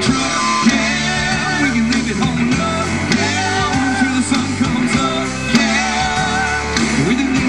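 A live country-rock band playing a song: electric guitars, bass guitar and drums.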